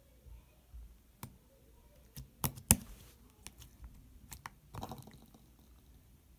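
Fluffy slime being poked and pressed with fingers, giving scattered soft squishing clicks and pops. The sharpest pop comes about two and a half seconds in.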